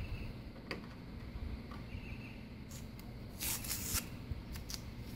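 Decal backing paper rustling and crackling as it is handled and peeled off the vinyl, with a few sharp clicks and a louder crinkling stretch about three and a half seconds in.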